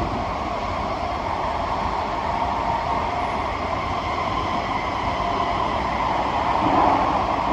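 Steady running noise inside a Kawasaki–CSR Qingdao Sifang C151B metro car moving along the line: a continuous rumble of wheels on rail that grows a little louder near the end.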